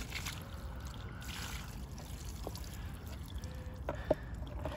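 Water poured from a plastic bag into a carp cradle over the fish, splashing and trickling for about the first two seconds.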